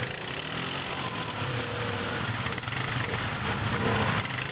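ATV (quad bike) engine idling, slightly louder near the end.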